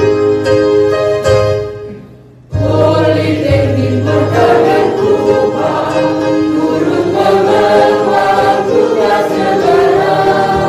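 Background music: keyboard notes that fade out about two seconds in, then a choir singing in full harmony.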